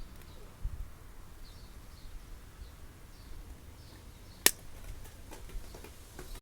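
Faint, short high bird chirps repeating over a low outdoor rumble, with one sharp click about two-thirds of the way in and a few fainter clicks after it.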